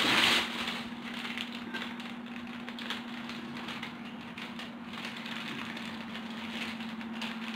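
Crinkling and crackling of a thin plastic wrapper being handled, in small irregular clicks with a louder rustle right at the start, over the steady hum of a running electric fan.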